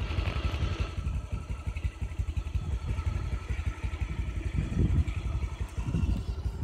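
Low, uneven rumble of a moving vehicle, heard from on board.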